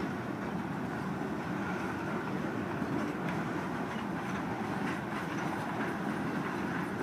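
Freight train's tank cars rolling slowly past, a steady rumble of steel wheels on rail.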